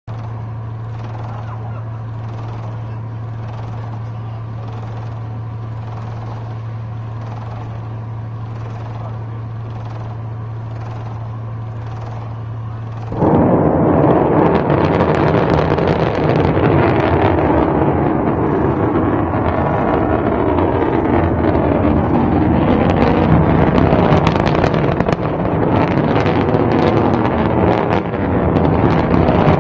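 A steady low hum, then about 13 s in the sudden loud rush of a Bulava submarine-launched ballistic missile's solid-fuel rocket motor firing as the missile leaves the sea. The crackling rush goes on steadily as it climbs.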